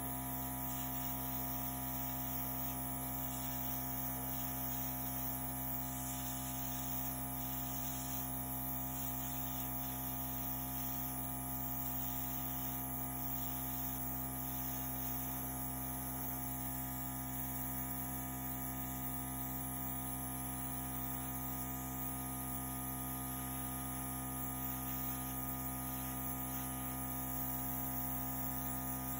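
Small airbrush air compressor running steadily with a constant hum, and air hissing from the airbrush as it blows wet acrylic paint across the canvas.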